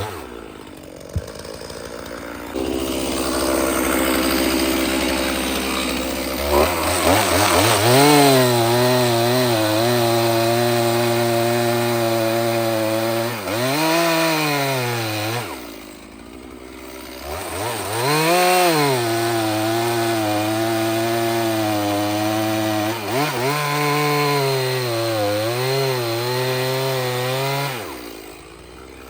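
Stihl chainsaw cutting seasoned oak, its engine held at high revs with the pitch wavering under load. The engine rises from idle a couple of seconds in, drops back to idle about halfway through, and drops again near the end.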